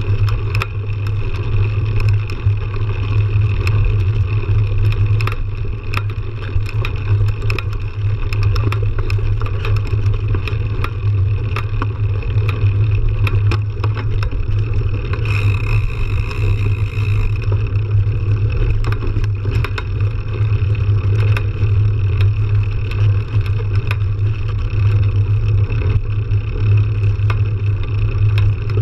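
Mountain bikes riding a dirt trail, heard from a camera mounted on a fat bike: the wide tyre rolling gives a steady low drone, with frequent small clicks and rattles from gravel and the bike. A brief higher buzz comes about halfway through.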